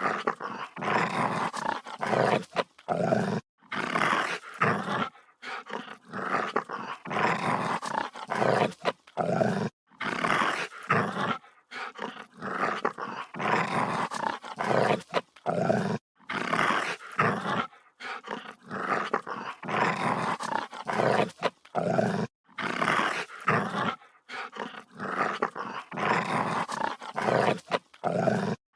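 A dog growling aggressively in a rapid string of rough, snarling bouts, each half a second to two seconds long, broken by brief silent breaths.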